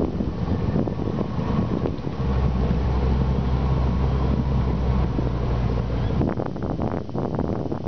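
Boat motor running steadily as the boat moves through the water, with wind buffeting the microphone; a steady low engine hum stands out from about two to six seconds in.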